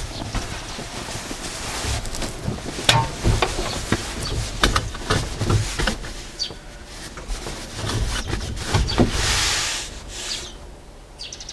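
Upholstered seat cushions being moved and laid in place inside a van's cab: fabric rubbing with a string of light knocks and thuds, and a brief rustle near the end.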